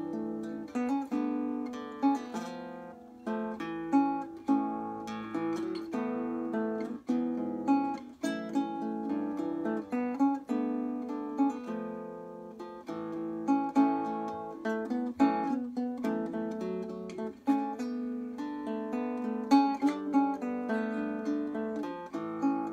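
Solo nylon-string classical guitar played fingerstyle: a steady flow of plucked melody notes over bass notes and chords, each note ringing and dying away.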